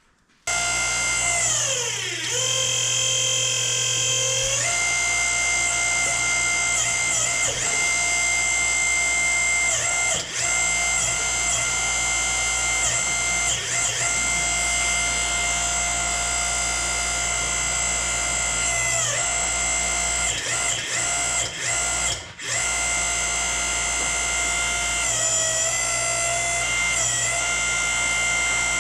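Power unit of a home-built hydraulic splitting stand starting up and running with a steady whine. Its pitch sags several times and recovers as the control valves are worked to move the tractor halves.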